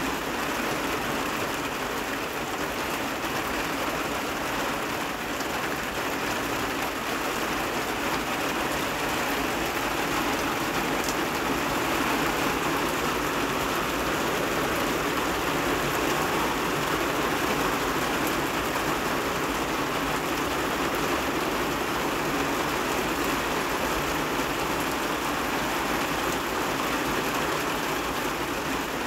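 Heavy rain falling steadily, an even, unbroken hiss of water with no distinct drips or other events.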